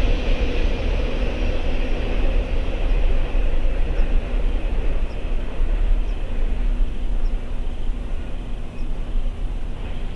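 Steady low rumble of distant vehicle traffic, with no train passing.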